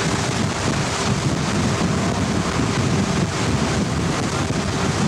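Steady wind buffeting the microphone over the rush of water from a boat under way on open sea.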